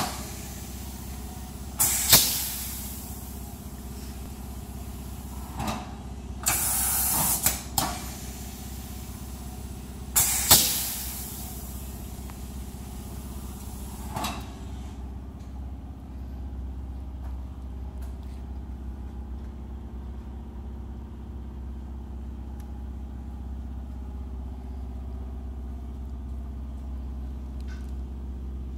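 Ajax double topper garment press being cycled: several loud hissing bursts in the first half, one lasting over a second, over a steady low hum that carries on alone after that.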